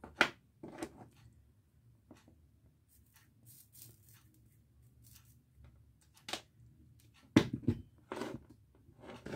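Scattered clicks, taps and knocks of soldering tools and wire being handled and set down on a workbench, with the loudest cluster about three quarters of the way through.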